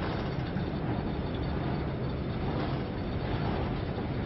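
Steady low rumble with a hiss above it, heard inside a passenger car ferry: the drone of the ship's machinery and ventilation carrying through the lounge.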